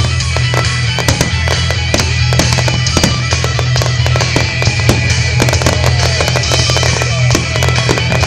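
Fireworks display: aerial shells bursting in quick, irregular succession with crackling, over loud music with a steady low bass.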